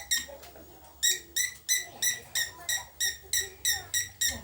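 Young female lovebird calling a rapid run of short, high, identical chirps, about four a second, with a brief pause near the start. This is the call the owner calls a strange voice.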